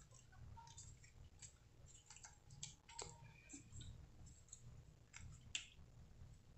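Near silence: room tone with faint, scattered small clicks.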